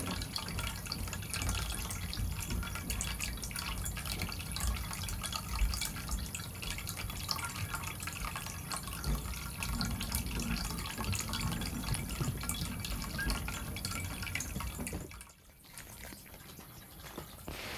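Water trickling and dripping steadily, a continuous splashing patter that stops abruptly about fifteen seconds in.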